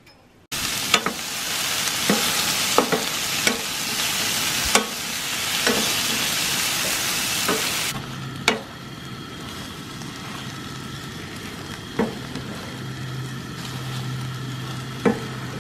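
Scrambled eggs with spinach and tomato sizzling in a stainless steel frying pan while being stirred with a wooden spatula, the spatula knocking and scraping against the pan every second or so. The sizzle starts suddenly about half a second in and drops to a quieter level about eight seconds in.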